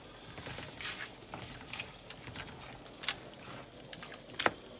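Wooden spoon stirring ground chicken, vegetables and corn in a skillet of simmering filling, with a few sharp taps of the spoon against the pan over a soft simmering hiss.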